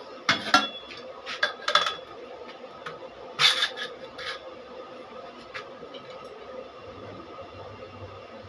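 Metal clinks and clatters as steel pieces are handled and set down: several sharp ones in the first two seconds and the loudest about three and a half seconds in, then a few fainter taps and a faint steady background.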